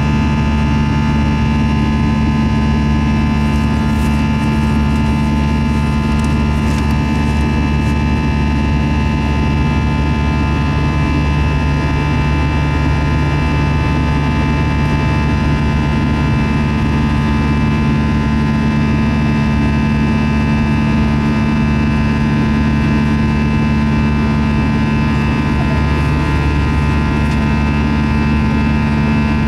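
Airbus A321 jet engines running steadily during the climb after takeoff, heard inside the cabin over the wing: a constant low rumble of air noise with a set of steady engine tones over it.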